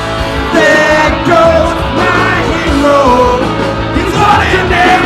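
Live band music played loud with a voice singing over a steady low beat, ending on a long held note.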